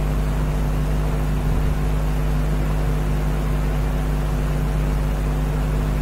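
Steady electrical hum with hiss, a constant low drone that does not change, from the recording setup.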